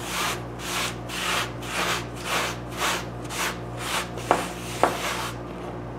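A cloth rag scrubbing back and forth on a wooden workbench top, about two strokes a second, wiping off black metal grinding dust. Two light knocks come a little past the middle, over a steady low hum.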